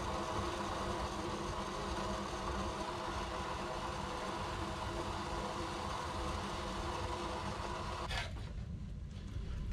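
Portable cassette gas stove burner running under a pot of boiling water: a steady hiss with a low hum, which stops abruptly about eight seconds in.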